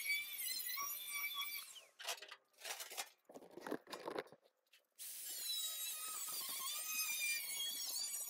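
Angle grinder with a thin cut-off wheel cutting sheet-steel trunk pan: a high motor whine that sags and recovers as the wheel bites. The whine breaks off for a few seconds of scattered scraping and knocks, then resumes.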